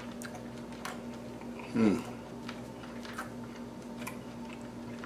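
A man chewing a bite of grilled lamb, with faint mouth clicks over a steady low hum. About two seconds in comes one short, falling "mm" of approval.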